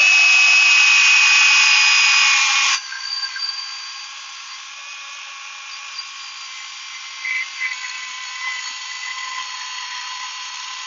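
Milwaukee battery-powered chainsaw running as it cuts through oak. Its electric motor and chain give a steady whine that is loud for the first three seconds, then drops suddenly to a quieter whine that carries on.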